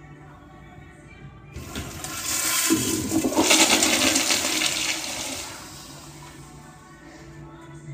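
Crane Plumbing Hymont toilet flushed by its flushometer valve: a sudden rush of water about a second and a half in, loudest in the middle, fading out about six seconds in.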